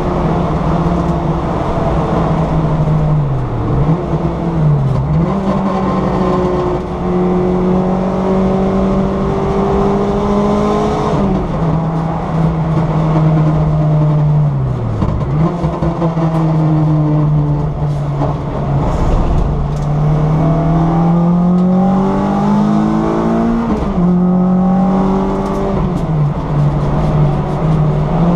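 Honda Civic engine heard from inside the cabin while being driven hard on a race circuit. The revs climb steadily and drop sharply at two upshifts, with a few short dips and recoveries in between. Road and tyre noise run underneath.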